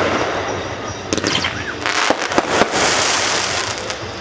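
Fireworks going off: several sharp bangs of shells bursting, a short whistle about a second and a half in, and a spell of dense crackling around three seconds in.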